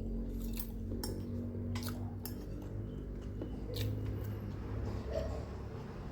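Several light clinks and clicks of tableware, spaced irregularly and mostly in the first four seconds, over a steady low hum.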